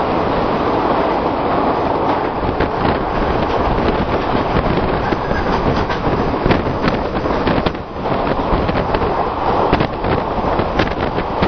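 Express train running on the rails: a loud, steady rumble with many sharp clicks and knocks from the wheels, briefly dipping about eight seconds in.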